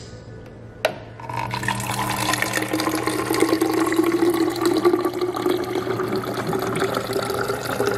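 Water dispenser filling a plastic water bottle: a click about a second in as the flow starts, then a steady stream of water over a low hum, its pitch slowly rising as the bottle fills.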